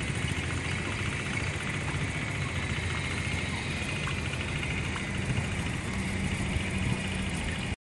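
A motor vehicle's engine running steadily with a low hum, cutting off suddenly near the end.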